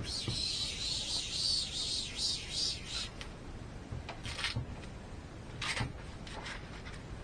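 Acrylic sheet rubbing and squeaking against the fridge door frame as it is worked into a tight fit: a continuous scrape for about three seconds, then a few short scrapes.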